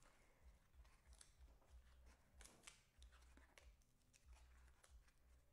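Faint creasing and crinkling of corrugated cardboard tabs being folded by hand, a scatter of small separate clicks and rustles.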